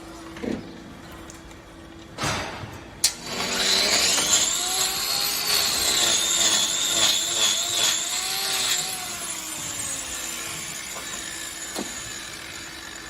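A handheld power tool runs for about six seconds with a high whine that sags slightly in pitch partway through, preceded by two sharp knocks.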